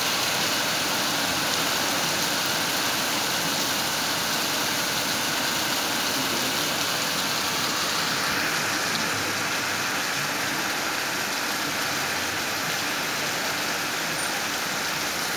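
Hail and heavy rain pouring down, a dense, steady patter of countless impacts.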